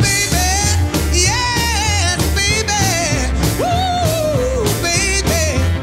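Background music: a song with a wavering sung melody over a pulsing bass beat.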